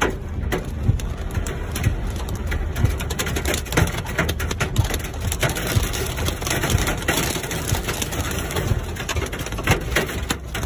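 Heavy rain mixed with hail pelting the roof and windshield of a moving car: a dense, irregular clatter of hits over a low road and engine rumble.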